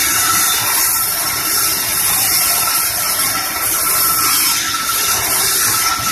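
Large sawmill bandsaw ripping a medang log lengthwise: a steady, loud, high hiss of the blade cutting through the wood, with a faint steady whine running under it.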